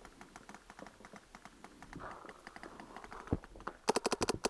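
Paintball markers firing rapid strings across the field, a fast patter of small pops. Near the end, a much louder quick burst of about eight shots from a close electronic marker, an Empire Axe.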